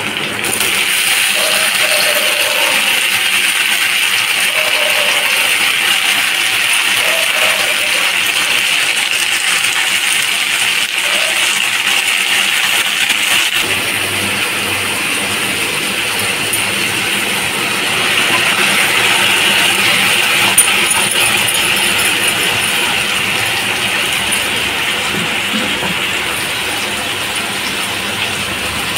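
Onions and chopped tomatoes frying in hot oil in a kadai: a steady sizzle, a little louder about two-thirds of the way through.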